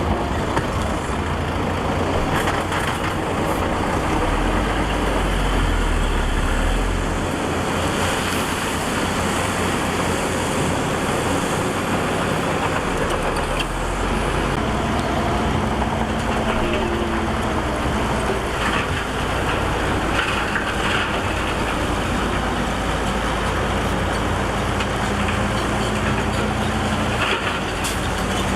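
Heavy diesel machinery on an earthworks site running steadily, its low engine note shifting now and then as it works, with a few faint knocks.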